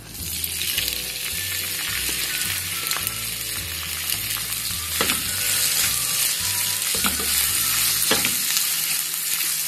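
Sliced onions sizzling and frying in hot oil in a non-stick wok, the hiss starting the moment they go in and holding steady. A wooden spatula stirs them, knocking sharply against the pan a few times.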